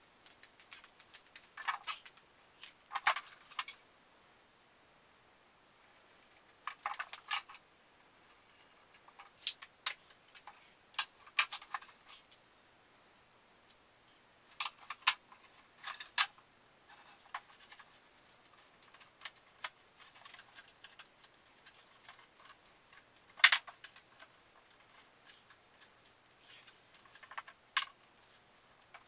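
Scattered light knocks, clicks and clatter in short clusters as boards, a plywood sheet and a metal track are handled and set down, with one sharp click standing out near the end.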